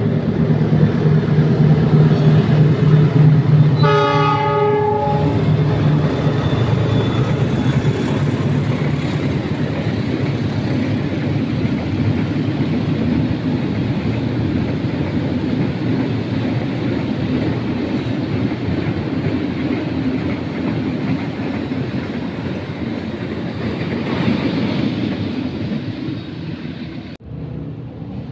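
A train passing close by: it sounds its horn once, briefly, about four seconds in, then a long steady rolling noise of the cars on the rails. The sound cuts off sharply near the end.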